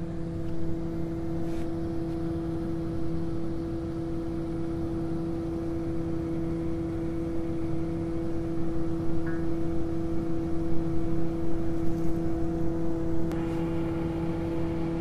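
Truck-mounted well-pump hoist rig's engine running at a steady speed, a constant hum, with a few metal clinks near the end.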